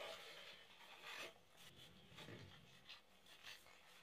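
Faint rubbing and swishing of a stack of baseball trading cards being handled and slid between the hands, several soft strokes.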